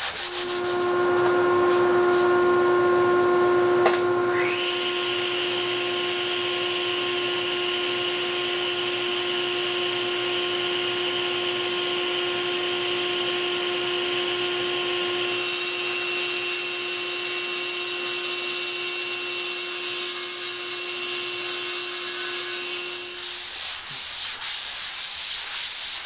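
Hand sanding with a small foam-backed 150-grit sanding block on a wooden panel, in short back-and-forth strokes, briefly at the start and again for the last couple of seconds. In between, a steady machine whine of several held tones takes over, with a higher tone sliding up and joining about four seconds in.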